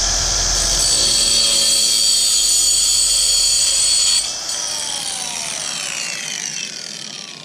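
Small cordless angle grinder with a cut-off wheel cutting through a ski pole, a loud steady high whine. About four seconds in the trigger is released and the disc spins down with a falling whine.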